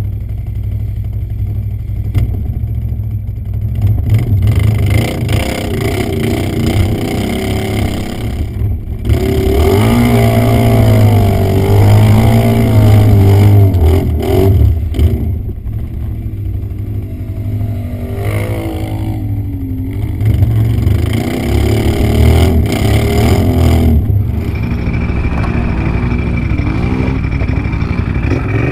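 Can-Am ATV engine revving hard and unevenly, its pitch rising and falling with the throttle as it works under load through deep mud; loudest about ten to fourteen seconds in.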